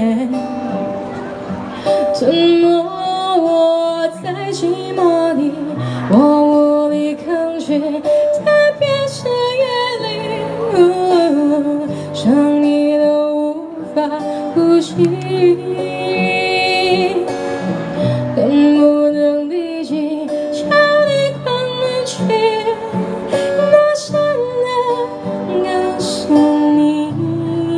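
A woman singing a slow melody into a microphone, accompanying herself on an acoustic guitar, with a waver on the held notes.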